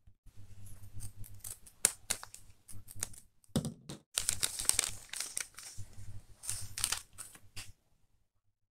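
Clear plastic bag crinkling and rustling as it is handled and a sticker sheet is pulled out of it, with irregular small clicks. It is busiest about four seconds in and stops shortly before the end.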